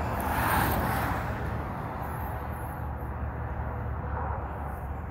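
Steady low rumble of road vehicles, with one vehicle passing close by that swells and fades within the first second and a half.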